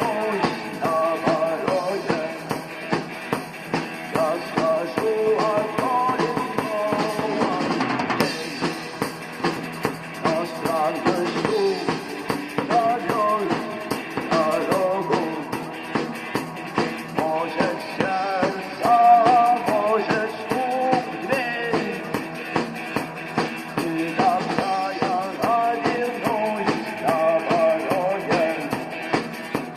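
Rock music: a drum kit keeps a steady beat under a melodic instrumental line, with no singing.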